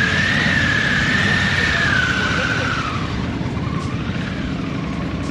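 Motorcycle running at slow speed with a high, wavering brake squeal that fades out about three seconds in: the sound of the rear brake being dragged against the engine at walking pace.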